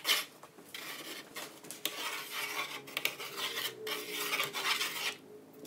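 Scraping and rubbing with light clinks of baking equipment being handled on a counter, stopping about five seconds in.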